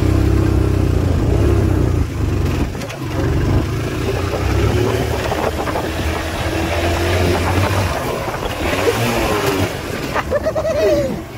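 Motorcycle engine running as the bike is ridden slowly over a rough dirt trail. The low engine note eases off about eight seconds in.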